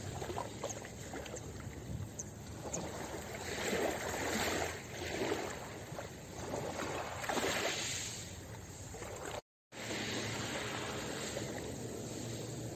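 Small sea waves washing in gently over a pebble shore, swelling and easing every couple of seconds. The sound cuts out completely for a moment about three-quarters of the way through, then returns as a steadier wash.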